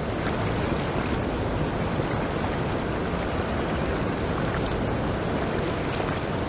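Steady rushing of a fast river current running over rapids, with a shifting low rumble of wind on the microphone.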